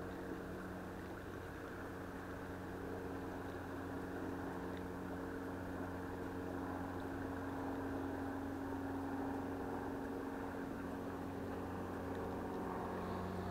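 A steady engine-like drone of several held low tones over a rushing hiss, slowly growing louder.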